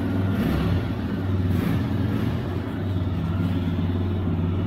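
A TVS 125 cc single-cylinder motorcycle engine idling steadily in neutral, moments after being started.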